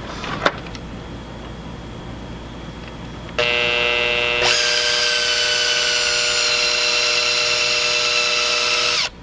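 Electric drill with a small bit drilling a fastening hole through the furnace housing: the motor starts about three seconds in, speeds up a second later, runs steadily with its whine sinking slightly in pitch under load, and stops just before the end.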